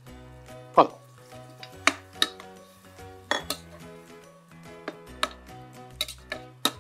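Metal ladle stirring a thick keema curry in a metal pressure-cooker pot, clanking and scraping against the pot several times, the loudest clank about a second in and a quick run of clanks near the end. Background music plays underneath.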